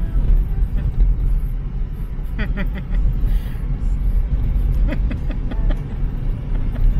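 Car driving, heard from inside the cabin: a steady low rumble of engine and road noise, with faint voices briefly in the background.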